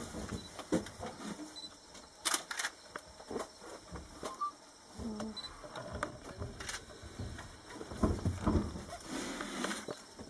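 Scattered sharp clicks and rustling from a handheld camera being moved about inside a bus, with a few brief low sounds between them.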